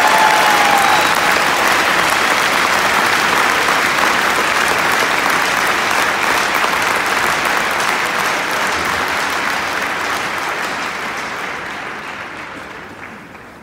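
Large arena crowd applauding, the clapping fading away over the last few seconds.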